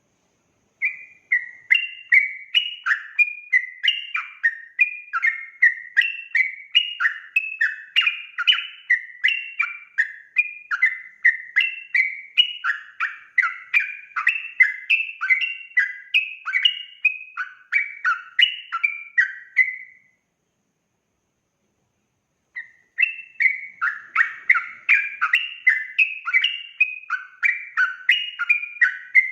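Yellow-vented bulbul (trucukan) singing a fast, unbroken run of bubbling warbled phrases, about three a second. It stops about 20 seconds in and starts again after a pause of two or three seconds.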